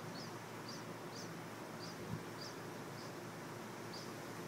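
A small bird chirping repeatedly, short high chirps about every half second, over a steady hiss of wind. A soft low thump about two seconds in.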